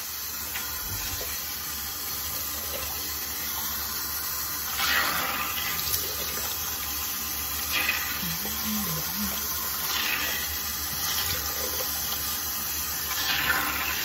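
Tap water running steadily into a bathroom sink while face cleanser is rinsed off with splashes of water every couple of seconds; the tap is turned off at the very end and the rush stops suddenly.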